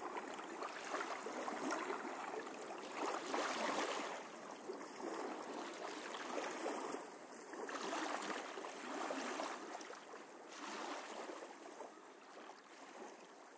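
Small sea waves washing over shallow water, swelling and easing every two to three seconds and fading away near the end.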